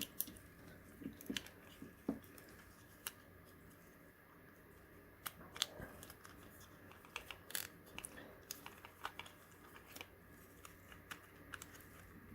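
Irregular small clicks and taps of hard 3D-printed plastic parts being handled and pushed together, as a printed switch lid is worked into its groove and doesn't seat.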